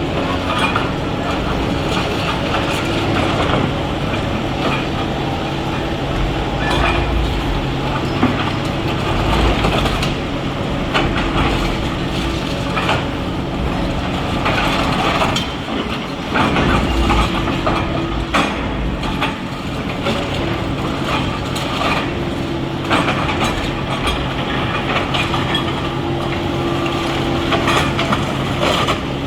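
Excavator diesel engines running steadily under load while the machines break up a building, with repeated sharp clanks, scrapes and crunches of metal and concrete debris.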